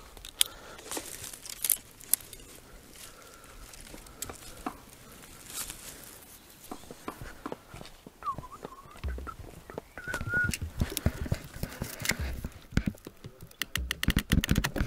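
Twigs and brushwood crackling and snapping, heard as scattered sharp clicks, with two short bird chirps near the middle. From about nine seconds in, a denser run of knocks and thuds joins them.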